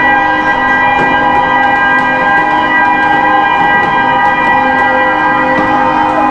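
A ship's horn sounding one long, loud, multi-tone blast, a steady chord held without a break, with a lower tone that shifts pitch now and then.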